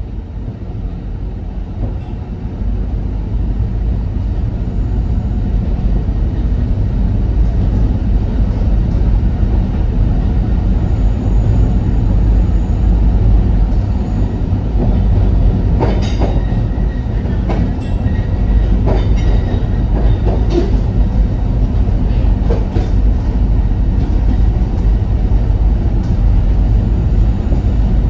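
Narrow-gauge Alishan Forest Railway train running, heard from inside the passenger carriage: a steady low rumble of wheels on the track. Occasional clacks come about halfway through.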